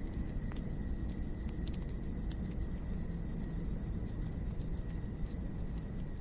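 Crickets chirping in a fast, even high trill, over the low steady rumble of a wood fire with a few sharp crackles and pops.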